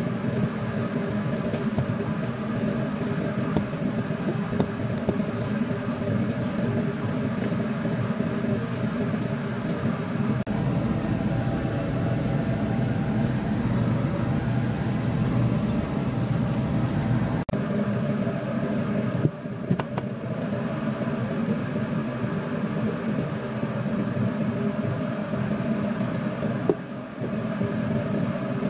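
A steady machine hum: a low drone with several held tones that runs on unchanged, with a few faint knocks.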